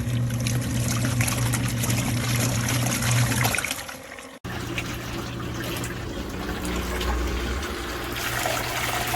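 Small twin-tub portable washing machine running: a steady motor hum with water trickling. The sound fades and cuts off abruptly about four seconds in, then the hum and trickling resume.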